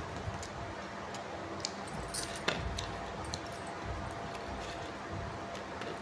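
A few light clicks and clinks, the sharpest about two and a half seconds in, over a steady background hiss.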